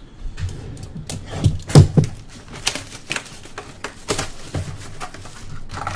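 Cardboard box of trading cards being torn open by hand and its packs handled: crinkling and rustling with scattered clicks and knocks, the loudest about two seconds in.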